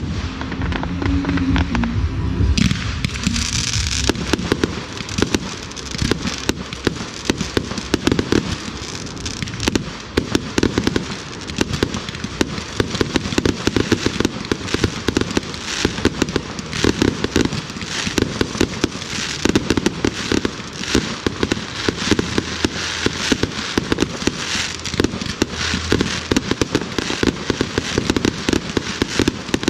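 Fireworks display firing a dense, continuous barrage: many sharp bangs a second over a constant crackle.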